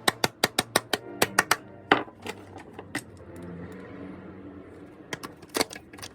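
Background music, with a fast run of sharp clicks, about seven a second, for the first two seconds, then a few scattered clicks.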